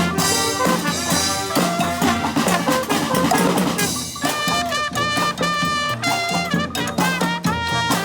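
Brass band playing live, horns carrying the tune over a drum beat. The horns drop out briefly about halfway and come back in on higher held notes.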